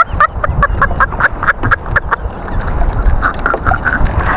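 A man laughing in a quick run of short, repeated bursts, over a low rumble of wind and water on the microphone.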